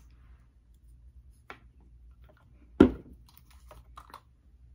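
Plastic body-care bottles and their caps being handled: a few light clicks and one louder knock about three seconds in.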